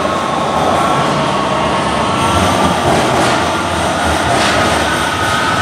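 Guangzhou Metro Line 3 train pulling into the station behind the platform screen doors: a steady rumble of running train with a high whine held through it that rises slightly near the end.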